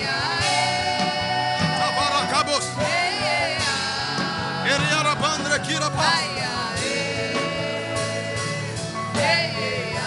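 Worship music: a voice singing long, wavering notes over a sustained instrumental backing.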